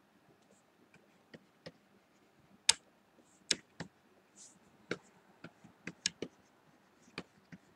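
Scattered light clicks and taps of a pen stylus on a graphics tablet during quick sketch strokes, irregularly spaced, the sharpest a little under three seconds in.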